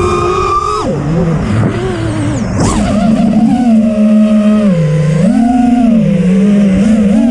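Racing quadcopter's Xing 2306 2450kv brushless motors and props whining, picked up by the onboard action camera. The pitch drops sharply in the first second as the throttle is cut, then rises and falls repeatedly with throttle changes during low, fast flying.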